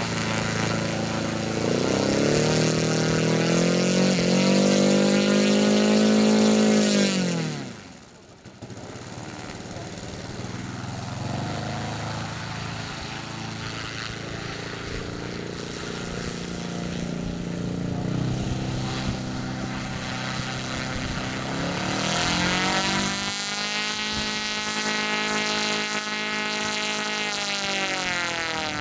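A radio-controlled aerobatic model plane's engine runs just after being started with a hand-held electric starter, its pitch sweeping up and down as the throttle is worked. Near eight seconds in it falls away sharply, then runs quieter and steadier, and it swells again with rising pitch over the last several seconds.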